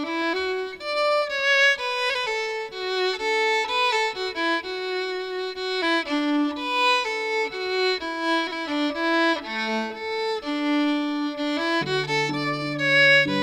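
Solo violin playing a slow, legato melody, beginning out of silence. Lower held notes join near the end.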